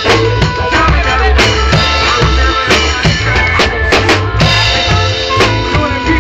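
A rock band playing together in a small rehearsal room: drum kit with bass drum and snare hits, electric guitars, electric bass and keyboard, loud and steady.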